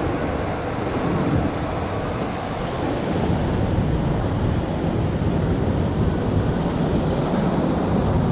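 Ocean surf breaking and washing in steadily, with wind rumbling on the microphone.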